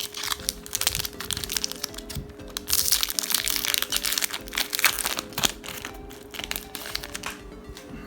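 Crinkling and crackling of a foil Pokémon booster pack wrapper being handled and opened, busiest and loudest in the middle, over background music.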